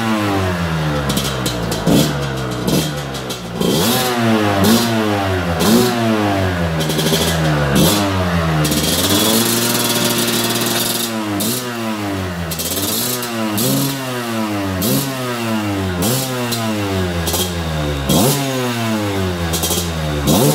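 Two-stroke enduro motorcycle engine being revved in quick repeated throttle blips, about one a second, each rising and dropping back. About nine seconds in it holds a steady higher rev for a couple of seconds before the blips resume.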